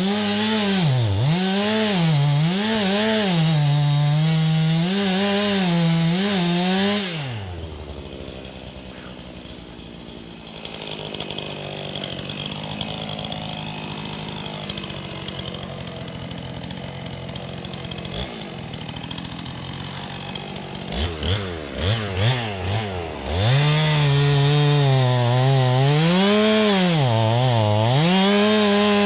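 Chainsaw engine cutting into a tree, its speed rising and falling under load. About seven seconds in it drops back to idle for a long stretch, is revved in a few short blips, then runs at full speed cutting again through the last few seconds.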